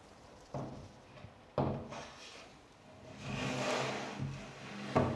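A wardrobe top shelf board being lifted and set onto its supports: it knocks against the carcass a couple of times, scrapes as it slides into place in the middle, then knocks once more near the end.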